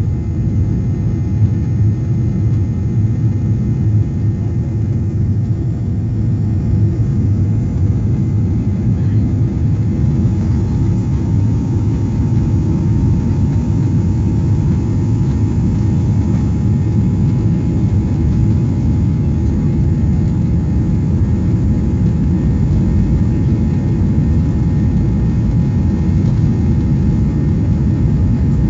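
Jet airliner's turbofan engines running at a steady pitch with a dense low rumble, heard inside the cabin as the plane rolls along the ground. A faint steady whine becomes clearer about a third of the way in.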